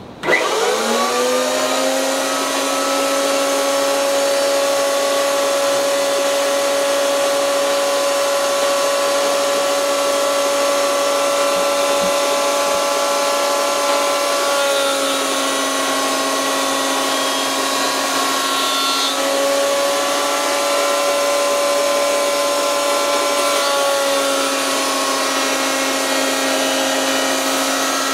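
Benchtop electric planer switched on: its motor and cutterhead spin up with a quickly rising whine, then run at a steady pitch. The tone shifts a few times as wooden blocks are pushed across the cutterhead.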